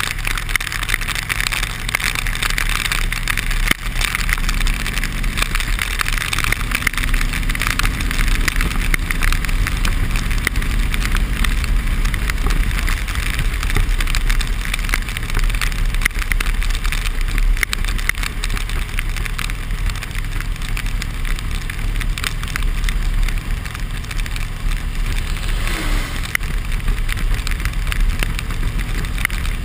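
Harley-Davidson Electra Glide Limited's V-twin engine running at road speed in rain. A steady hiss of wind, rain and tyre spray off the wet road lies over it.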